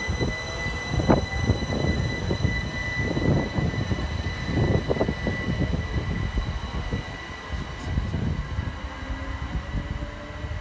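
c2c Class 357 Electrostar electric train running past the platform: wheels rumbling and knocking over the rail joints under a steady high electric whine, the rumble easing near the end as the train draws away.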